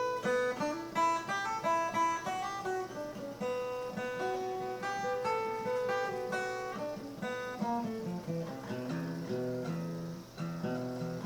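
Guitar playing a melody of single plucked notes, with the lower accompanying notes growing busier toward the end.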